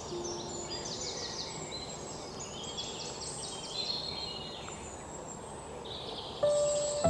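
Several songbirds chirping and trilling, with quick repeated high notes and overlapping calls. Soft sustained instrumental music swells back in near the end.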